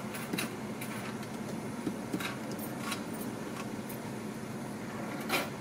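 Steady hum of a car idling, heard from inside the cabin, with a few faint clicks and a sharper click near the end.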